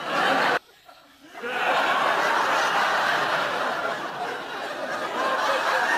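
Sitcom studio audience laughing. The laughter cuts off abruptly at a cut a little over half a second in, then a second bout of audience laughter swells up after about a second and holds steady.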